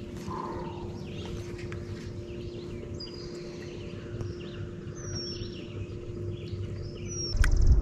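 Birds calling and singing, with short high whistles that slide downward every second or two, over a steady low hum. Near the end a loud low rumble cuts in.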